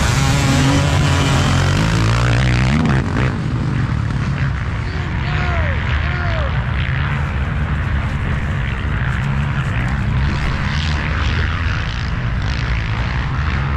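A pack of racing ATV (quad) engines running hard as the field pulls away. The revs climb sharply in the first three seconds, then settle into a loud, steady drone with occasional brief rev sweeps from individual quads.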